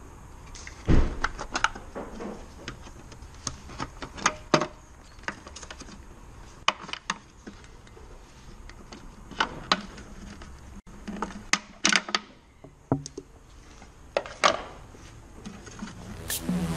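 Scattered plastic clicks, taps and knocks of a car tail light assembly being handled by hand as its bulb socket and wiring are fitted into the lamp housing. Electronic music with a beat comes in near the end.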